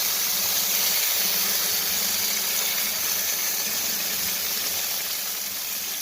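Bacon frying in a pan: a steady sizzling hiss.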